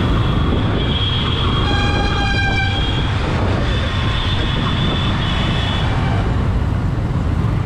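Riding a Yamaha R15M motorcycle through dense city traffic: a steady rumble of engine and road noise. A vehicle horn honks for about a second, around two seconds in, and a higher horn tone sounds for about two seconds in the middle.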